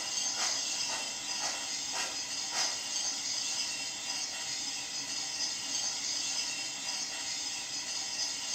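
Onboard Proto-Sound 2.0 speaker of an MTH Climax geared steam logging locomotive model playing simulated steam sounds: a steady hiss with a few soft chuffs in the first three seconds as the model runs slowly.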